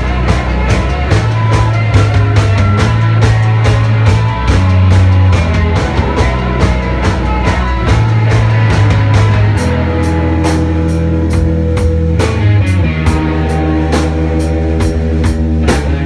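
Live rock band playing: a drum kit keeps a steady fast beat with cymbals over bass and guitar. About halfway through the low end settles onto longer held bass notes and the drum hits spread out.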